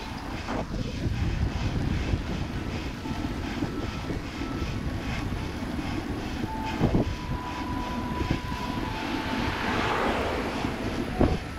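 Wind rumbling over the microphone of a camera on a moving bicycle, mixed with tyre and road noise, with a few sharp knocks from bumps in the road; a brighter hiss swells near the end.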